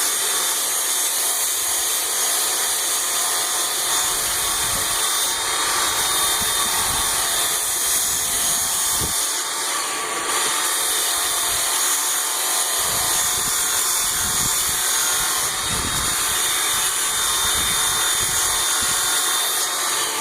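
Work Sharp Ken Onion Edition belt sharpener running steadily while an axe's bevel is ground on a coarse grinding belt: an even motor whine under a loud grinding hiss, with a few dull knocks from handling. The machine switches off just after the end.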